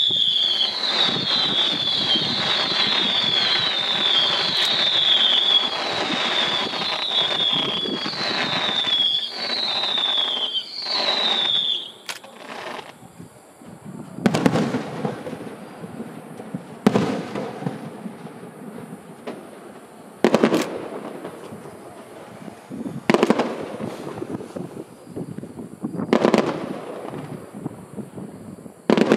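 Aerial fireworks. For the first twelve seconds, whistling shells rise in quick succession, each whistle falling in pitch, about one a second, over dense crackling. After that come single loud shell bursts about every three seconds, each trailing off in echo.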